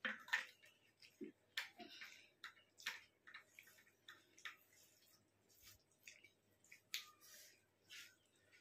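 Faint, irregular clicks and wet smacks of a person eating rice by hand: chewing, and fingers mixing rice and dal on a plate.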